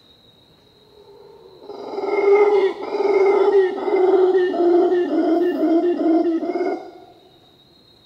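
Howler monkey giving a loud, deep, pulsing howl. It swells in about a second and a half in, runs for about five seconds, and cuts off near the end.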